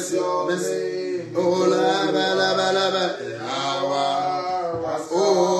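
A man singing a slow worship chant solo, drawing out long held notes.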